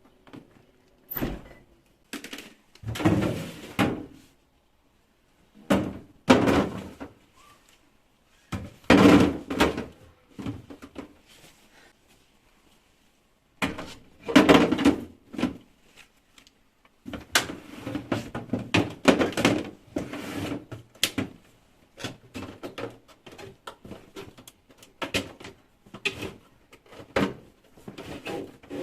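Household handling sounds: a series of thuds, knocks and rustles as things are moved about and set down, with a door or drawer opened and closed, in a small room.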